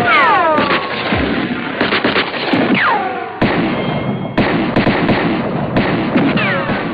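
Cartoon war sound effects: a continuous barrage of gunfire and blasts, with descending whistles at the start, around three seconds in, and near the end.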